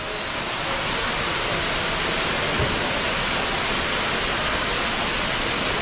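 Fountain aerator in a fish pool spraying water onto the surface: a steady rushing splash.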